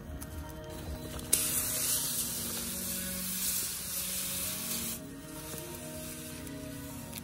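Hose-fed weed sprayer nozzle hissing in one steady spray of about four seconds. It starts sharply a little over a second in and cuts off suddenly. Background music plays throughout.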